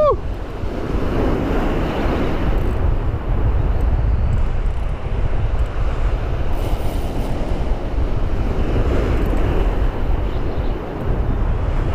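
Wind buffeting the microphone over surf breaking and washing against shoreline rocks: a steady rush with gusty swells in loudness.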